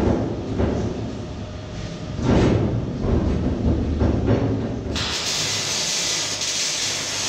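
Low workshop rumble with irregular knocks, then about five seconds in a steady hiss starts abruptly: an electric welding arc struck on the steel narrowboat hull.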